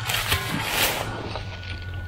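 Dry leaf litter rustling and crackling as hands and a digging shovel work the leaves over a buried target. A faint steady electronic tone comes in about halfway through.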